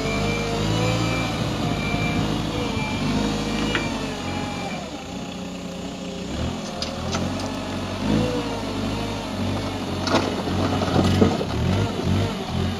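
Hidromek 62SS mini backhoe loader's engine running, rising and falling in pitch several times as the hydraulics are worked while digging. A repeated electronic beep sounds during the first few seconds.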